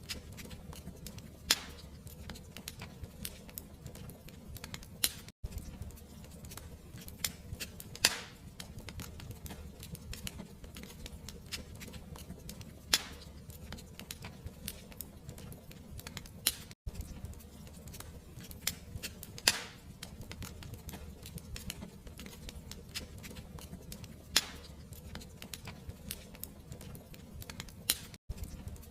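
Fireplace fire crackling: frequent small irregular crackles and a few louder pops over a low steady rumble, with three very brief dropouts in the sound.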